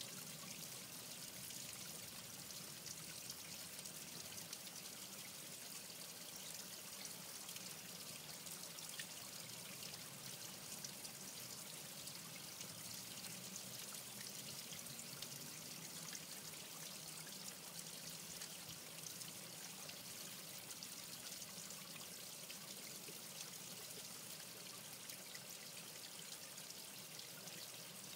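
Running water trickling steadily, a faint even hiss with no change or separate events.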